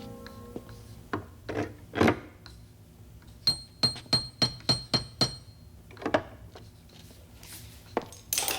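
A series of knocks and clicks. In the middle comes a quick run of about eight sharp, ringing metallic taps, roughly four a second.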